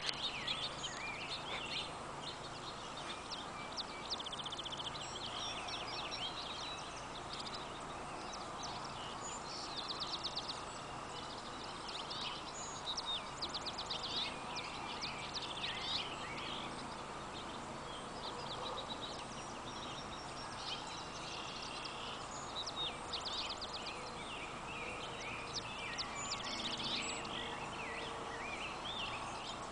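Chorus of small songbirds chirping and trilling throughout, high-pitched and overlapping, over a steady faint background hiss of an open meadow.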